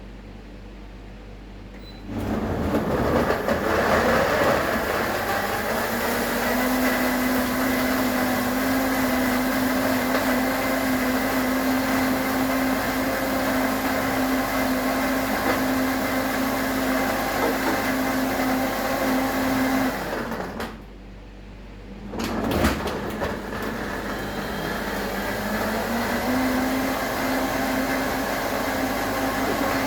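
Countertop blender starts about two seconds in and runs steadily, blending a smoothie of fruit, orange juice and ice cubes. Its motor's pitch rises a little after a few seconds. It stops briefly around twenty seconds, restarts with a knock, and its pitch climbs again a few seconds later.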